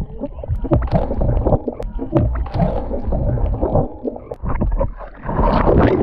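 Lake water sloshing and splashing around a camera held at the water's surface as swimmers move, with irregular gurgles and splashes throughout.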